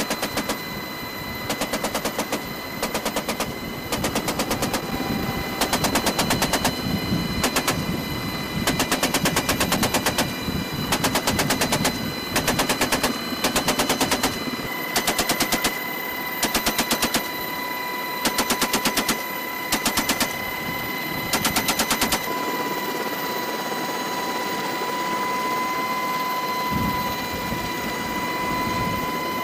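A .50-calibre GAU-18 machine gun fired from a helicopter's door mount in a long series of short bursts for about the first twenty seconds. After that only the HH-60 Pave Hawk's steady engine and rotor noise with a high whine remains.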